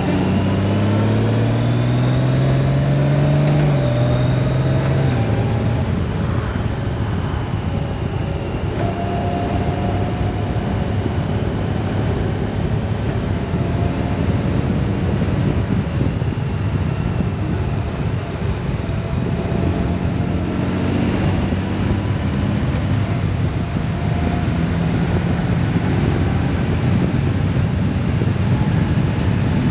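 Honda Gold Wing DCT's flat-six engine running under way, with steady wind rush. The engine note rises as the bike accelerates, steps down at a gear change about four seconds in, then holds steady at cruising speed.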